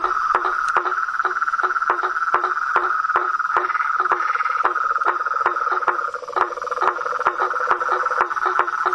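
Chorus of frogs calling: a steady high trill under short, evenly repeating croaks about three a second.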